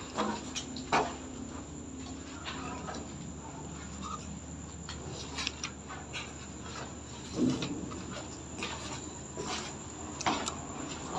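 Footsteps and scuffs on a bare concrete floor, a few sharper knocks among them, over a faint steady high-pitched tone.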